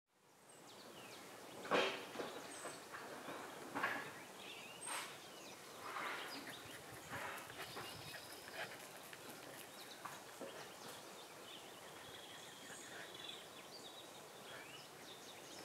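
Faint outdoor ambience with scattered animal calls over a steady background hiss, fading in at the start; the louder calls come in the first six seconds or so.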